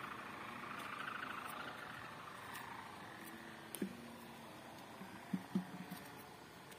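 Steady insect chirring, fading over the first few seconds, with a few brief low sounds near the end.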